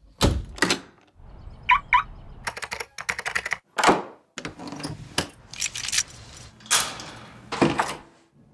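Locks and bolts on doors and a wooden cabinet worked by hand: deadbolts and knob locks turned and a brass slide bolt pushed. It comes as a run of metal clicks and clacks with short sliding scrapes between them, and two small ringing clicks about two seconds in.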